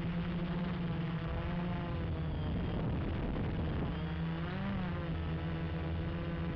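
Gaui 330X quadcopter's electric motors and propellers buzzing in flight, the pitch sliding up and down as the throttle changes, with a brief rise about four and a half seconds in.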